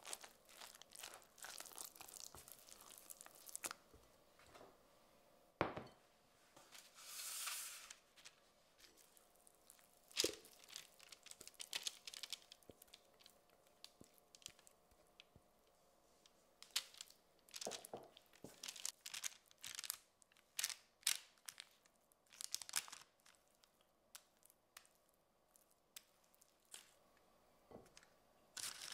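Stirring and spreading zucchini batter: a silicone spatula scraping and squelching through the wet grated mixture in a glass bowl, then parchment paper crinkling on a baking tray as the batter is poured out and spread. Scattered knocks and scrapes run through it, with one sharper knock about six seconds in.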